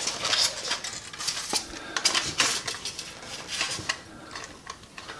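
Handling noise as a toy car is lifted out of its polystyrene foam packaging: a run of light clicks, knocks and scraping, busiest in the first half and dying down toward the end.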